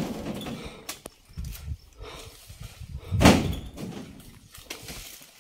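Oil palm fruit bunches thrown up into a pickup truck's bed with a pole, landing with thuds: one heavy thud about three seconds in, lighter knocks before and after.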